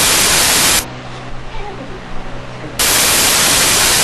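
Loud bursts of hissing static that switch on and off abruptly: one cuts off under a second in, and another cuts in about three seconds in. Between them is a low steady electrical hum under faint background noise.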